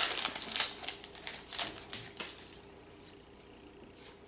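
Trading-card pack wrapper crinkling and crackling as the pack is opened: a run of sharp crackles over about the first two and a half seconds, then only faint handling sounds.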